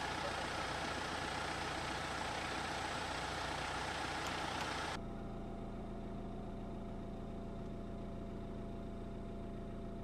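Car engines idling: a noisy, even rumble for the first half, then a sudden change about halfway to a quieter, steady engine hum.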